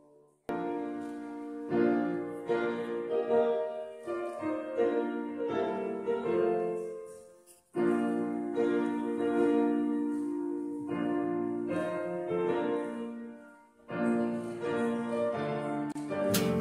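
Piano music that breaks off abruptly and starts again about half a second in, near eight seconds and near fourteen seconds. Guitar strumming comes in near the end.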